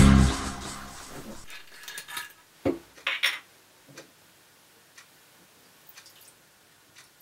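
Choral music fading out in the first second, then a few sharp clicks and knocks of a glass bottle and a small glass being handled on a wooden desk, the loudest a low knock about two and a half seconds in, followed by only faint small ticks as the bottle is poured into the glass.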